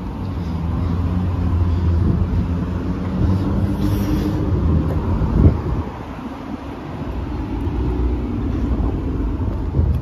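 Steady low rumble of car traffic, with one brief thump about five and a half seconds in.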